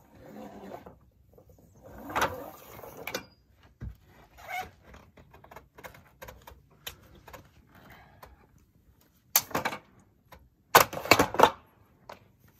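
Irregular knocks, scrapes and rustling from handling a stainless insulated chimney pipe on a metal roof as its padded cover bag is pulled off. The loudest bursts of rustling come in two spells in the last few seconds.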